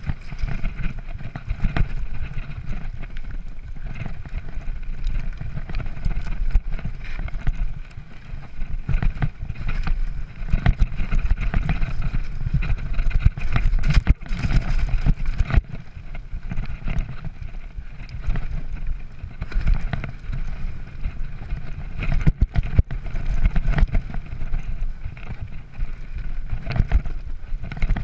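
Mountain bike running fast down a rough, stony trail: tyres rolling over gravel and roots and the bike rattling with frequent small knocks, under a steady rumble of wind buffeting the camera's microphone.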